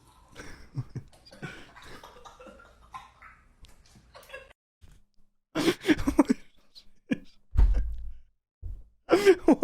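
A person coughing: a few short loud coughs about halfway through, then a dull thump.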